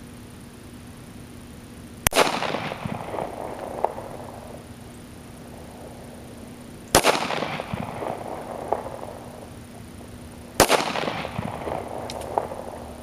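Three single shots from a Kel-Tec P3AT .380 ACP pocket pistol, a few seconds apart, each sharp crack trailing off in echoes for about two seconds.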